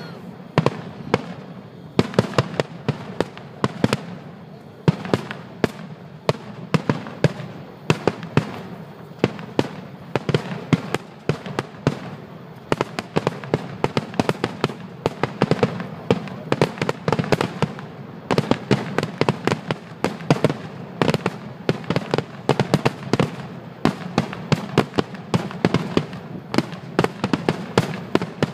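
Fireworks display finale: aerial shells bursting in a rapid, continuous barrage, several bangs a second.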